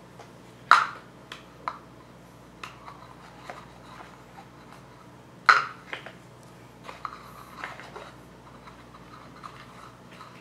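Plastic Hot Wheels toy track pieces being handled and fitted together on a tile floor: sharp plastic clicks and knocks, the loudest about a second in and again about five and a half seconds in, with lighter taps and rubbing between.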